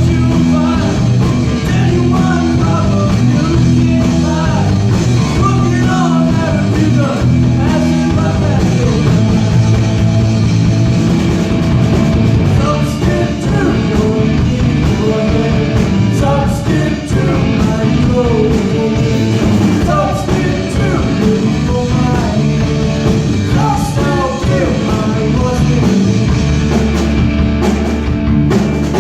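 Rock music with a singer's voice over guitar and a steady bass line.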